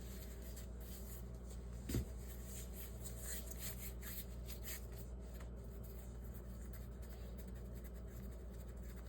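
Hands working bread dough on a counter: faint rubbing and light taps, with a single knock about two seconds in, over a steady low hum.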